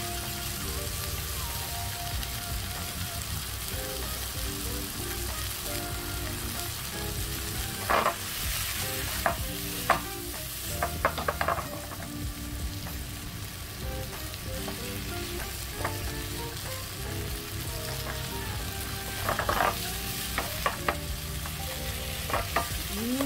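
Eringi mushroom and tomato pieces sizzling steadily in olive oil in a frying pan. Sharp clacks of tongs against the pan come in two clusters, about eight to twelve seconds in and again near twenty seconds, as the pieces are turned.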